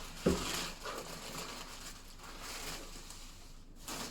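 A single knock about a third of a second in, then soft, uneven rustling and shuffling of handling noise.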